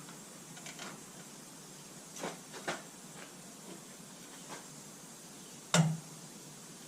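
Metal transmission parts being handled and fitted: scattered light clicks and taps, with one louder knock near the end, over a steady hiss.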